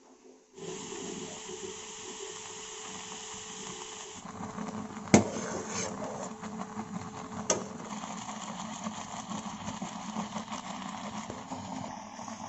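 A saucepan of oats cooking on a gas stove, heard as a steady hiss, with two sharp clinks a couple of seconds apart.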